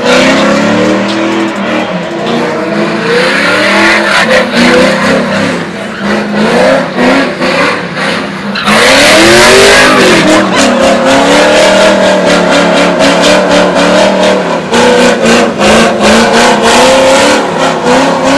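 A car's engine revving hard while its tyres squeal and skid in a burnout. About halfway through the sound turns suddenly louder and harsher, with a hiss of spinning tyres.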